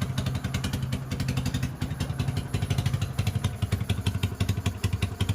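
Motorcycle engine running at idle with a steady, even beat.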